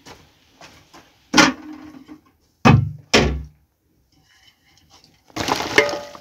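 A metal cooking pot and its lid clank three times with short ringing knocks as they are set down and handled. Near the end, hot water and boiled pieces tip out of the pot into a plastic basket with a loud splashing pour.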